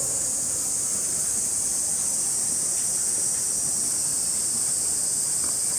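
Cicadas calling in a steady, high, unbroken buzz, which began abruptly just before.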